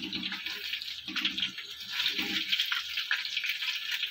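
Fish pieces frying in hot oil in a wok, a steady sizzle and crackle as the fried pieces are lifted out.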